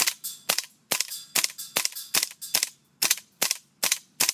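Gas blowback airsoft gun running on green gas firing a steady string of sharp shots, about eleven in all at roughly two and a half a second, each a crisp crack with a short clack of the bolt cycling.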